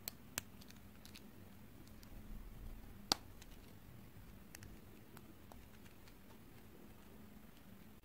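A few faint, sharp clicks of small plastic toy pieces being snapped together into a chain, the loudest about three seconds in.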